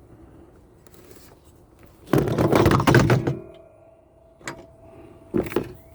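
Metal parts and tools clattering in a truck's engine bay while a new belt tensioner is bolted on by hand. A loud rattling clatter comes about two seconds in, followed by a few sharp knocks.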